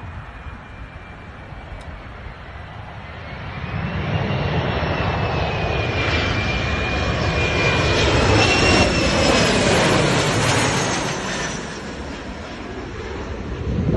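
Embraer E175 regional jet's twin turbofan engines passing on its landing approach. A high whine and a broad roar build from about three seconds in, peak past the middle, then ease off.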